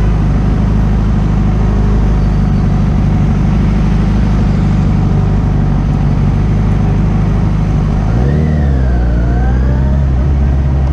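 Kawasaki Z1000 motorcycle's inline-four engine running at a steady low speed; about eight seconds in its note dips and then rises again.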